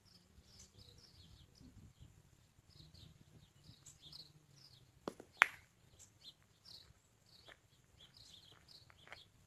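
Two sharp metallic clacks about five seconds in, a rolled pétanque boule knocking into the steel boules around the jack, the second clack the louder and ringing briefly. Small birds chirp throughout, and light steps crunch on gravel near the end.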